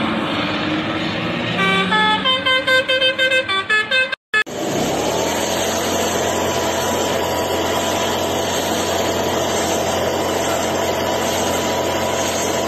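Road noise inside a moving car with a vehicle horn sounding a rapid series of short toots, then an abrupt cut to a steady motor drone with a constant whine that rises in and later fades away.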